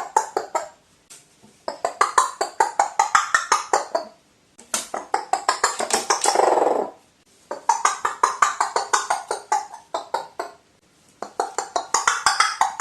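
A crow giving rapid rattling, knocking calls, about eight to ten clicks a second, in bouts of two to three seconds with short pauses between them. One bout, about halfway through, ends in a longer throaty sound.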